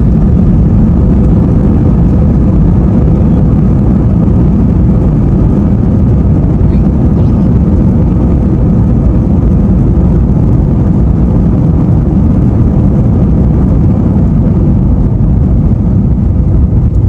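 Jet airliner moving on the ground, heard inside the cabin: a loud, steady low rumble of engines and wheels on the runway that does not rise or fall.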